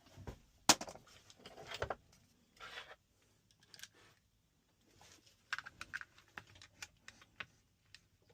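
Irregular light clicks, taps and short scratchy rattles of small hard objects being handled, the sharpest click a little under a second in, with more scattered clicks in the second half.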